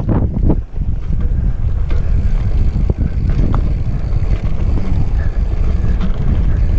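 Steady low rumble of wind buffeting the microphone of a rider's action camera while riding a mountain bike over sandstone slickrock, mixed with the rolling noise of the bike.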